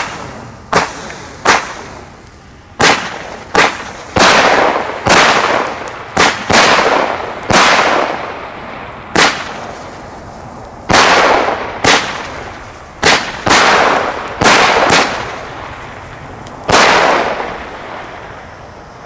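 Nico Sweet Sixteen 15 mm, 16-shot firework battery firing: a quick string of sharp bangs, about one a second, many of them trailing off in a hissing tail, the last one about 17 seconds in.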